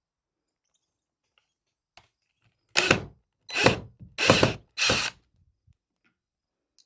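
Power drill running in four short bursts of about half a second each, backing a screw out of the door hardware.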